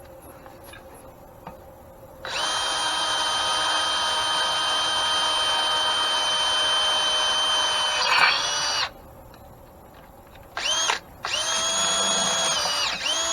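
Electric drill boring a hole to be tapped for a set screw, in the cast iron of an antique grain mill. It runs with a steady whine for about six seconds from two seconds in, stops, gives a brief blip, then runs steadily again, its pitch dipping slightly under load just before each stop.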